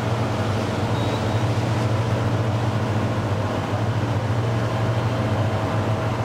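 Boat engine running with a steady low drone, heard from on board while under way on the river.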